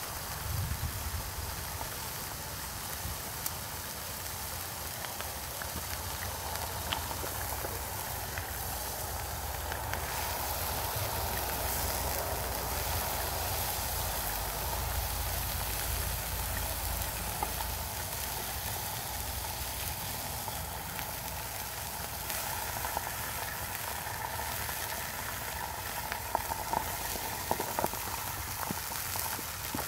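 Burger frying in a frying pan: a steady sizzle with small crackles of spitting grease, and a few sharper pops near the end.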